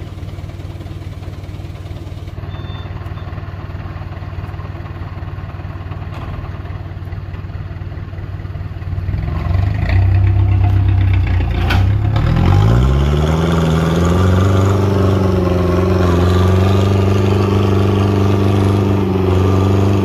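Heavy diesel truck engine idling, then revving up about halfway through and held at high revs under load for several seconds before the revs fall away near the end. A single sharp knock comes just before the revs climb.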